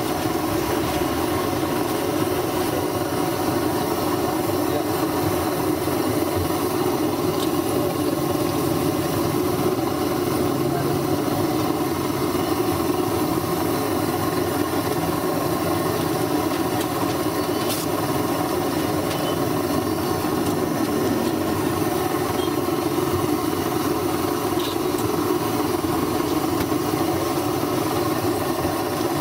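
Battered green chillies deep-frying in a kadai of hot oil over a gas burner: a steady sizzle and burner roar with a constant hum, broken by a few faint pops.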